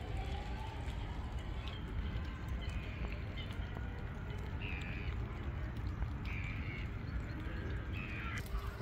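Several short bird calls, the clearest three in the second half, over a steady low rumble of outdoor background noise.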